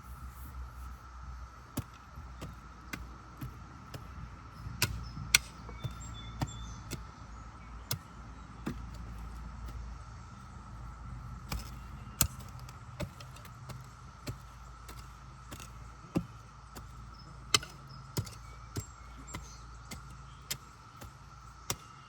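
Hand weeding and planting in a garden bed: scattered sharp clicks and knocks over a low rumble. A steady high insect drone runs underneath.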